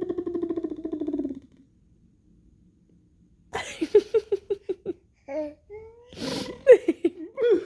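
A person making silly vocal noises to amuse a baby. First a long buzzy drone that slides slowly down in pitch and stops, then a pause. Then quick staccato laugh-like syllables, about eight a second, with a breathy burst in between.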